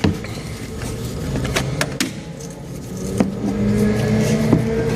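Scattered light metallic clicks and taps as a washer and brake hardware are handled on a car's front hub. A steady low hum comes in about three seconds in and grows a little.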